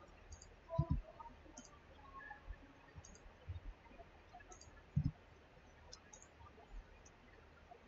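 Faint computer mouse button clicks, spaced a second or more apart, as line endpoints are placed in the CAD sketch. Two louder low thumps come about a second in and about five seconds in.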